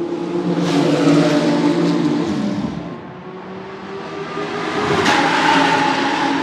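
Porsche 997 GT2 RSR's twin-turbo 3.9-litre flat-six engine running hard in two loud surges, with a brief drop in level and pitch between them about two and a half seconds in.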